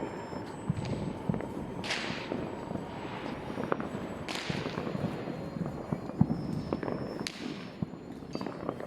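Scattered pops and bangs of New Year fireworks and firecrackers, with three longer hissing bursts about two, four and a half and seven seconds in.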